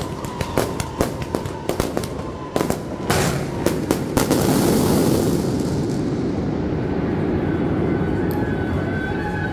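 Firecrackers going off: a fast run of sharp separate bangs, a few a second, then about four seconds in a dense, continuous crackling as a large firecracker barrage takes off.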